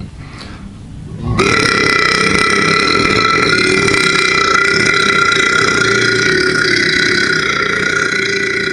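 A person's long, drawn-out burp that starts suddenly about a second and a half in and holds one steady pitch to the end.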